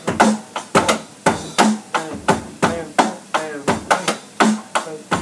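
Electronic drum kit played in a steady groove, about three hits a second, mixing bass drum, snare and hi-hat strikes, with the hi-hat opened on the off-beat sixteenths (the 'E' and 'a' counts).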